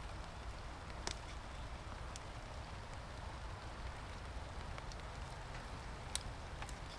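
Steady rain, with scattered sharp ticks of drops; two are louder, about a second in and about six seconds in.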